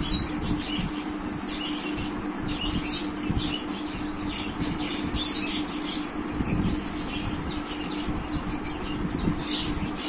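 Colour pencil scratching on paper in quick, irregular short strokes, with a steady low hum underneath.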